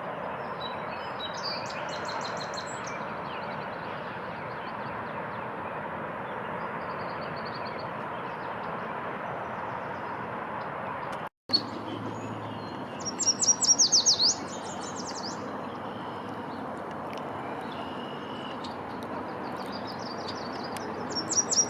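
A songbird singing two loud phrases of quick, repeated high sweeping notes, about halfway through and again at the end, over a steady outdoor background hiss with faint distant bird calls. The sound breaks off for a moment just before the first phrase.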